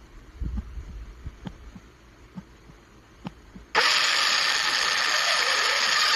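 Slow, low thumps about once a second, like a heartbeat sound effect. About two-thirds in, a sudden loud burst of harsh, static-like noise with steady tones in it cuts in and holds.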